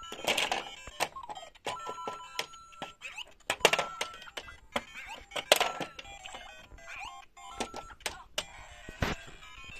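Electronic sound effects and short jingles from a LEGO Super Mario interactive figure's built-in speaker, made of beeping tones and quick melodic runs, with sharp plastic clicks as the figure is moved over the bricks.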